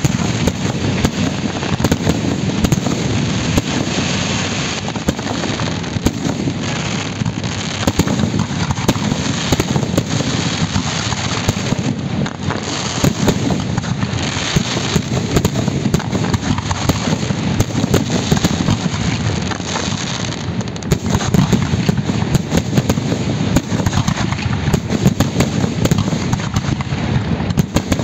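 Fireworks display: a dense, unbroken barrage of bangs and crackling.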